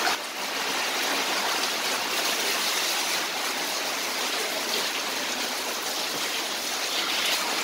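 Heavy rain falling steadily onto a wet concrete yard, with a stream of water from a roof spout splashing down. It makes an even, unbroken hiss.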